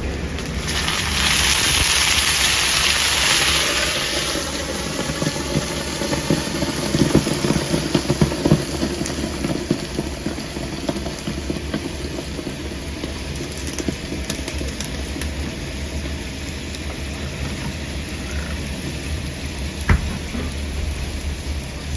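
A loud hiss of steam and sizzling from a hot pan of pan-fried xiaolongbao, lasting about three seconds, then settling into a lower, crackling fry with some clatter. A steady kitchen hum runs underneath, and there is one sharp knock near the end.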